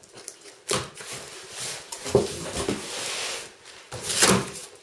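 Cardboard shipping carton being cut and torn open by hand: a series of scraping, tearing and rustling bursts of cardboard, the loudest near the end.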